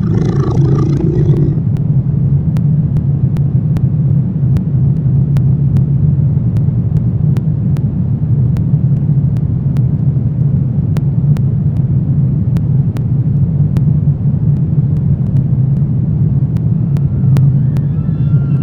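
Dark horror ambience: a loud, steady low rumbling drone with faint, scattered clicks a few times a second. A growling roar fades out in the first second or so, and a faint, wavering, high cry-like sound rises near the end.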